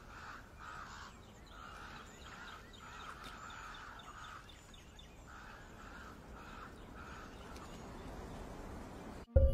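Ravens at a carcass calling in a loose series of short, faint caws, about a dozen in all, falling quiet for the last couple of seconds.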